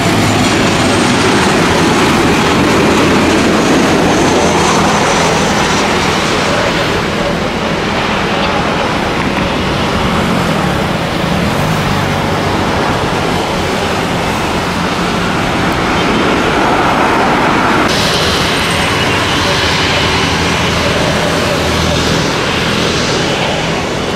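Loud, steady jet engine noise of a Boeing 737-800 airliner that has just landed. About 18 seconds in, the sound changes suddenly to the engines of a departing Airbus A320.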